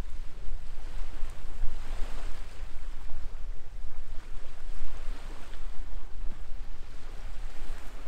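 Wind buffeting the microphone: a heavy, fluctuating low rumble with a rushing noise that swells and fades a few times.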